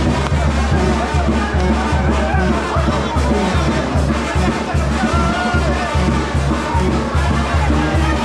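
Music with a steady low beat and wavering melodic lines above it.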